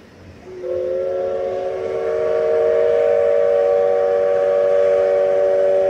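Steam locomotive whistle blowing one long chord of several steady notes, starting about half a second in, over the noise of the moving train.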